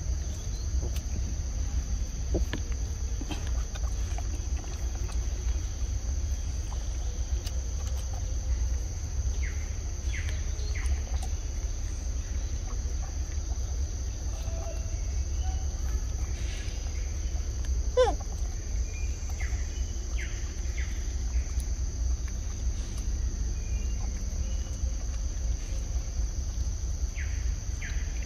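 Outdoor forest ambience: insects drone steadily at a high pitch over a low steady rumble, with scattered short bird chirps and one sharp sweeping call about two-thirds of the way through.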